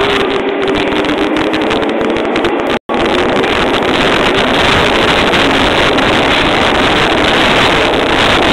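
Toei 12-600 series linear-motor subway train braking into the platform and slowing to a stop: a loud, steady rush of running noise with a faint whine over the first few seconds. The sound cuts out for an instant about three seconds in.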